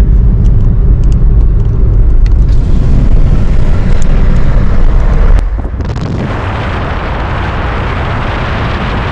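Car driving, with a loud low rumble of wind and road noise. A little over five seconds in, the rumble drops away and a steadier, quieter hiss takes over.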